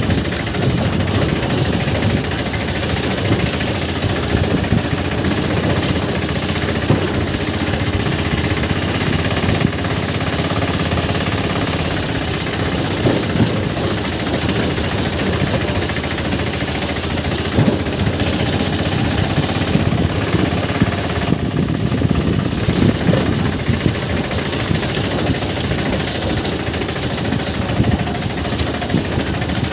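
Motorcycle engine running steadily while riding over a rough, muddy dirt road, with frequent knocks and rattles from the bumpy surface.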